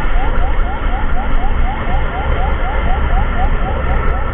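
Emergency siren in a fast yelp: short rising sweeps repeating about four times a second, over a heavy low rumble.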